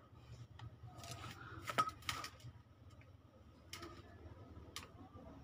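Scattered light metallic clicks and clinks from a motorcycle engine's cam timing sprocket and chain being handled and shifted by hand. About five separate sharp clicks over a faint steady hum.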